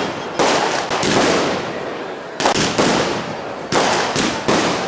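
Fireworks display: shells bursting in quick succession, loud sharp bangs each trailing off into a long echoing decay, with a short lull in the middle.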